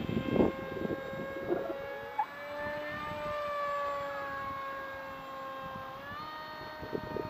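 Bixler 1.1 RC plane's Turnigy Aerodrive 2200Kv brushless outrunner motor and 6x4 propeller flying past at about half throttle, a steady whine that slides slowly in pitch and steps up about six seconds in. Wind gusts hit the microphone at the start and near the end.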